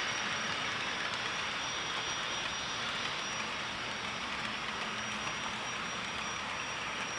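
HO-scale model freight cars rolling past on the layout's track: a steady, even rushing clatter of small wheels on rail, with a thin high steady whine running through it.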